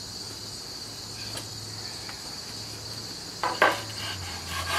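Crickets chirring steadily and high. About three and a half seconds in comes a single sharp knock as a wooden cutting board is set down, followed by a little clatter near the end.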